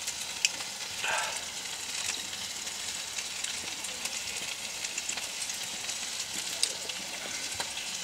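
Meatballs frying in a pan: a steady sizzling hiss scattered with sharp crackling pops.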